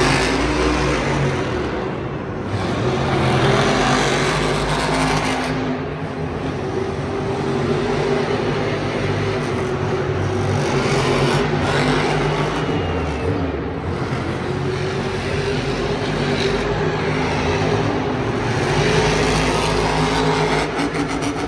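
Monster truck engine running loudly, its pitch shifting up and down as it revs.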